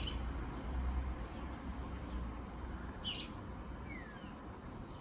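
Small birds chirping, with several short falling calls, over a low, uneven rumble that is strongest for the first couple of seconds and then eases off.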